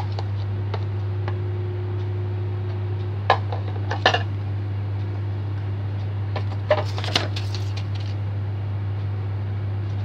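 A metal spoon clinking and scraping against a plastic container, in a few separate knocks about 3, 4 and 7 seconds in, over a steady low hum.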